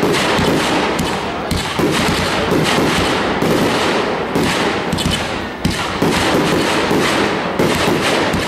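Fireworks display: aerial shells bursting overhead one after another, a dense, unbroken run of loud bangs.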